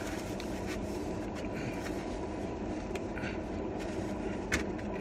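Steady low rumble inside a car, with scattered small clicks and rustles of eating from a sandwich in its paper wrapper, and one sharper click about four and a half seconds in.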